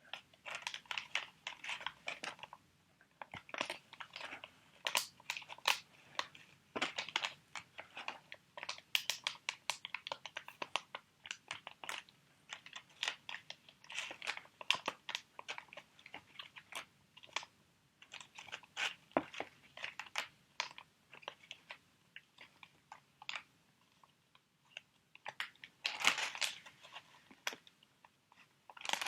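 Crinkly plastic sheet mask packets being handled, crackling in irregular bursts of sharp little crackles.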